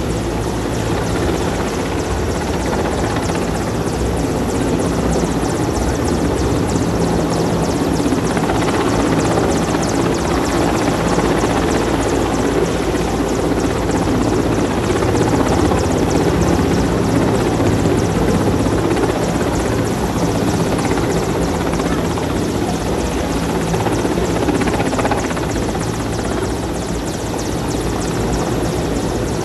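Mil Mi-17-type military helicopter hovering, its main and tail rotors and twin turbine engines running with a loud, steady drone.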